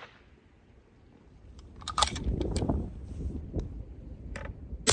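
Metallic clicks and rattling from a bolt-action rifle being handled, clustered about two seconds in with a couple more later. Right at the end comes one sharp shot from a 22 Creedmoor rifle fitted with a Diligent Defense Enticer LTi suppressor.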